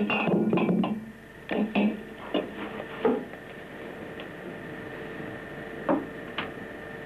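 Glass jars clinking and knocking against one another as they are moved and pressed among. A dense clatter in the first second gives way to single knocks every half second to few seconds, over a faint steady tone.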